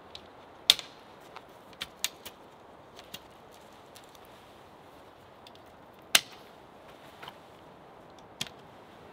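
Sharp, separate clicks and knocks of tent poles and their clips being fitted on a Snow Peak Alpha Breeze dome tent, about seven in all, the loudest near the start and about two-thirds through, over a faint steady hiss.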